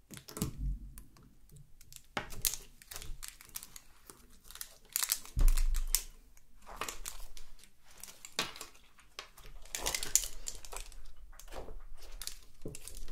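Firm clear slime being pressed, poked and folded with long acrylic nails, giving irregular clicking and crackling pops, with one louder thump about five seconds in.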